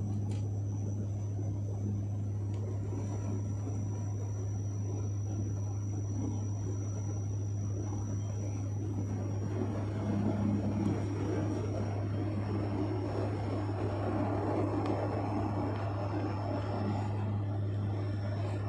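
Propeller airliner in flight heard from inside the cabin: a steady low propeller drone over a constant rushing noise, swelling slightly about halfway through, with a faint high whine above it.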